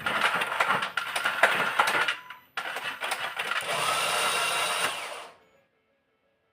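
2014 Ford EcoSport cranking without starting: two bouts of whirring, rattling mechanical noise about three seconds each, the second with a steady whine, then it stops and the engine does not catch. These are the strange no-start noises that have the owner stumped.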